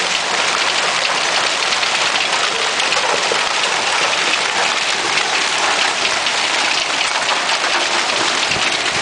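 Hailstorm: hailstones pelting down steadily, a dense, unbroken patter of countless small impacts.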